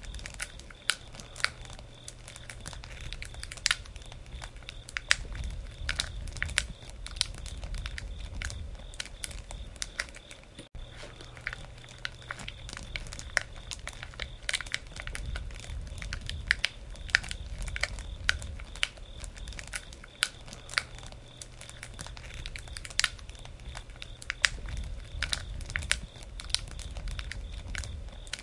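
Wood campfire crackling: irregular sharp pops and snaps over a low rumble.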